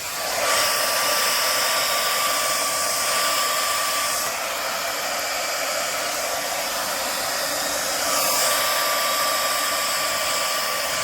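Electric hair dryer blowing steadily, pushing wet acrylic paint across a canvas in a Dutch pour. A thin whine within the rush of air fades out about four seconds in and comes back about eight seconds in.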